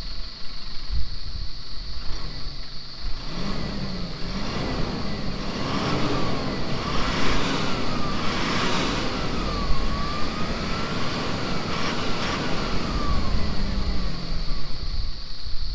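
Toyota Fortuner's 2.8-litre turbo-diesel four-cylinder accelerating hard. About three seconds in, the engine note starts to climb, then drops back at each upshift of the six-speed automatic, the gears running longer each time. It fades near the end.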